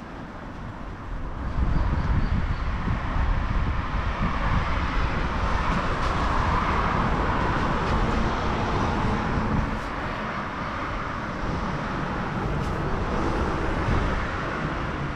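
A motor vehicle passing close by: a steady rumble of engine and tyres that swells about a second and a half in, is loudest midway, and eases off after about ten seconds.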